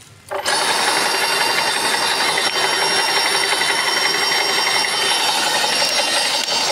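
Tsuzumi X25 airless paint sprayer switched on about half a second in, its electric motor and pump starting at once and running steadily and loudly with a high whine over a hiss.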